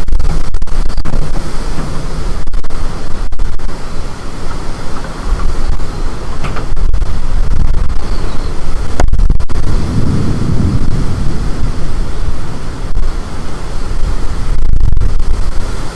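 Storm-force wind buffeting the microphone, a loud, continuous rumbling rush that rises and falls with the gusts. There is one sharp click about nine seconds in.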